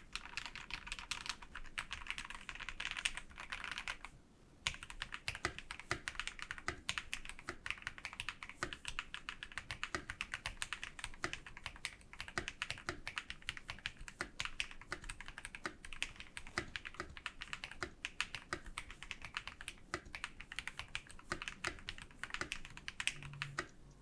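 Typing sound test on a TM680 mechanical keyboard fitted with lubed linear switches (KTT Strawberry and Akko CS Rose Red) and PBT keycaps: a quick, steady stream of keystrokes, with a brief pause about four seconds in.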